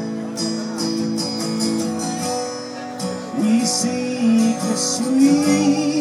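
Acoustic guitar strummed in a steady rhythm in a live folk song; about three seconds in, a wavering melody line comes in over the strumming.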